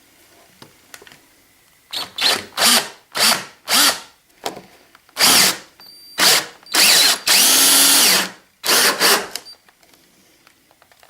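Electric drill with a 1 3/8 inch hole saw cutting into a plastic bucket lid. It runs in short trigger bursts, its pitch rising at each start, then in one longer run of about a second and a half near the end.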